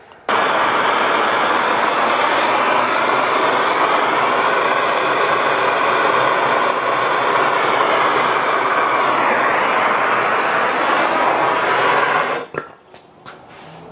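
Handheld brazing torch burning MAPP gas: a steady hiss of the flame, its tone slowly shifting, while aluminum tubing is heated for brazing. It starts suddenly just after the beginning and cuts off about a second and a half before the end.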